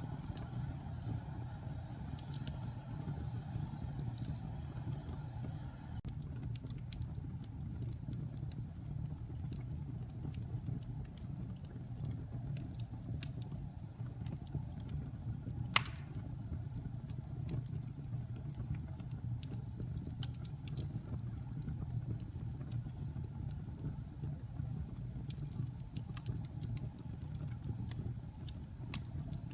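Wood fire burning in a fireplace: a steady low rumble with scattered small crackles and one sharp, loud pop about halfway through.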